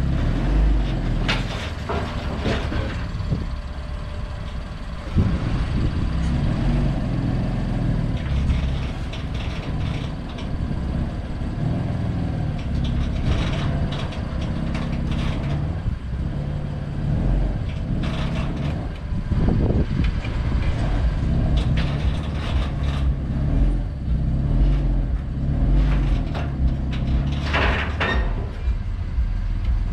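BMW M3's twin-turbo straight-six engine running at low revs as the car creeps up onto a car trailer, with occasional knocks and clicks on top.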